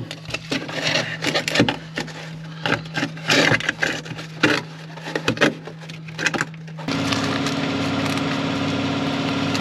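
Irregular knocking, scraping and clattering of metal parts being handled. About seven seconds in, a power tool starts and runs at a steady pitch, ahead of cutting a hole in the truck's floor.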